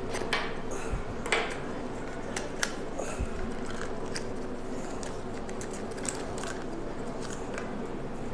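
Classroom room tone: a steady hum with scattered small clicks and rustles from students writing in their notebooks.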